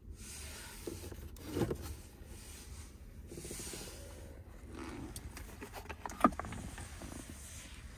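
Sliding plastic cover of a 2021 Chrysler Pacifica's center console being pushed along its track over the storage bins: rubbing and sliding with a few small knocks and clicks, a cluster of them about a second and a half in and the sharpest about six seconds in.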